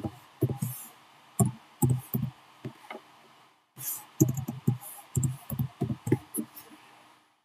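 Computer keyboard being typed on: two quick runs of separate keystrokes, each a soft thud with a sharp click, with a short pause about halfway through.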